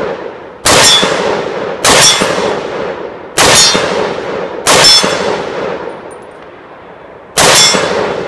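Five single, aimed shots from a SIG Sauer P716 AR-10-pattern pistol chambered in 7.62×51 / .308, fitted with a Krinkov-style muzzle device. The shots come at uneven gaps of one to three seconds, and each sharp crack is followed by a long ringing decay.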